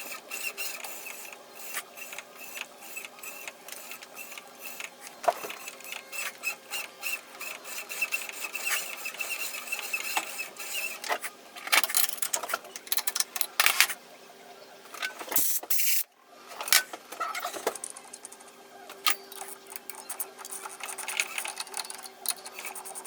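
Shop machining noise: a small machine running with a fast rattle of clicks and scraping as a hammer part is cut or shaped. It cuts out briefly about two thirds of the way through, then starts again.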